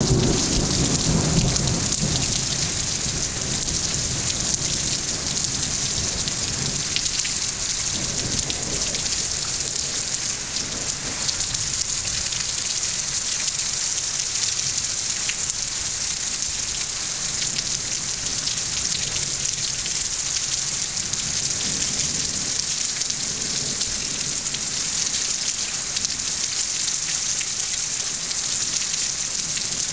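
Heavy rain pouring steadily, with low rolls of thunder at the start, again about a third of the way in, and once more about three quarters of the way through.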